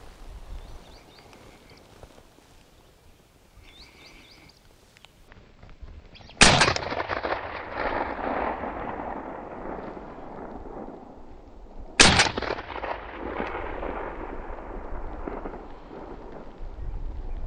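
Two shotgun shots about five and a half seconds apart, fired at a woodcock flying over. Each shot is followed by a long rolling echo that fades over several seconds.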